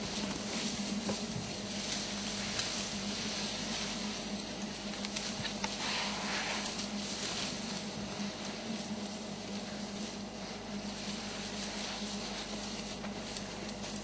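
Soft rustling and crackling of leaves and branches as elephants feed in thorny bush, over a steady low hum. The rustling is briefly louder about six seconds in.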